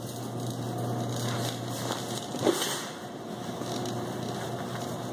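Shopping cart rolling along a store aisle, its wheels and wire basket making a steady rattling noise over a low hum, with one sharp knock about two and a half seconds in.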